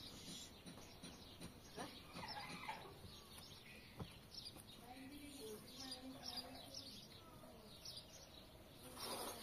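Faint, scattered clucking of domestic fowl, with a few short high chirps.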